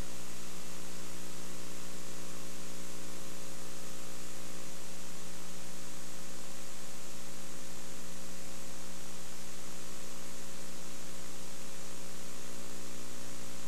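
Steady electrical mains hum with a constant hiss over it, unchanging throughout, in place of the programme sound: the audio of the videotaped broadcast has dropped out.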